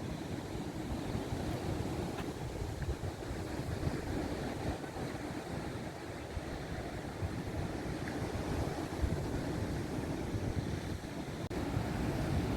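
Sea surf washing onto the beach, mixed with gusty wind rumbling on the microphone.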